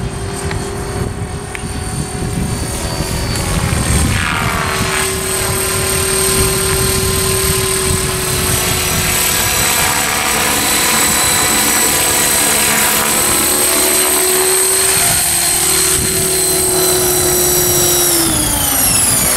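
Radio-controlled model helicopter running with a steady high whine. Its pitch climbs about four to five seconds in as the rotor speeds up, holds, then drops away near the end as it slows.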